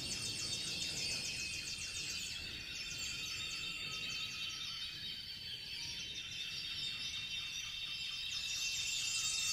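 A chamber ensemble's closing bars: several high sustained tones held together, shimmering with a rapid regular flutter.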